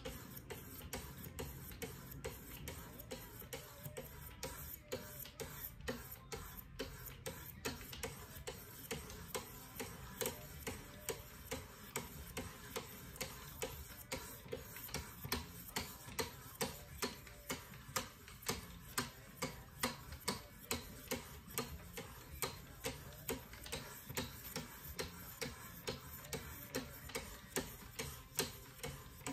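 Wicked Edge guided-rod sharpening stones stroked alternately along both sides of a clamped WE Knives Balaenoptera blade, steel scraping on the abrasive in an even rhythm of about two strokes a second. The strokes grow louder about halfway through.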